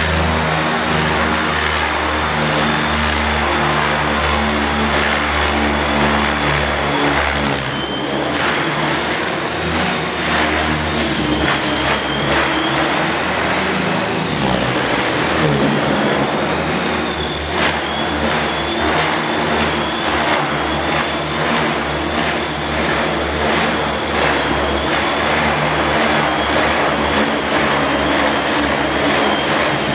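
MSH Protos 500 electric radio-controlled helicopter in flight: a steady high motor whine over the hum of the spinning rotor, both shifting a little in pitch as it manoeuvres, echoing in a large metal-roofed hall.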